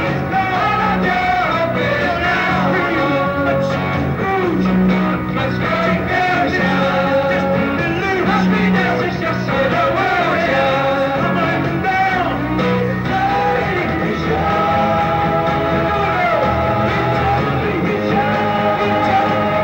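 Live rock band recording: a lead vocal sung over electric guitar, bass and drums, with a steady beat.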